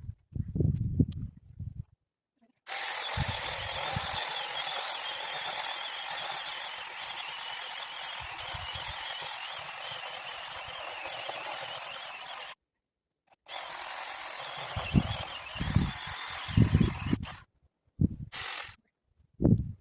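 Mini chainsaw running steadily with a high motor whine for about ten seconds, stopping briefly, then running again and ending in a few short bursts, with low thumps of wood near the end.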